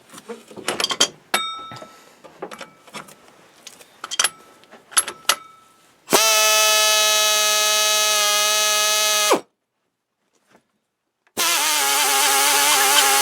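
Clicks and knocks of a drill and hole saw being handled. Then the drill's motor runs with a steady whine for about three seconds and stops abruptly. After a pause it runs again with a wavering, squealing tone as the hole saw cuts into steel at slow speed.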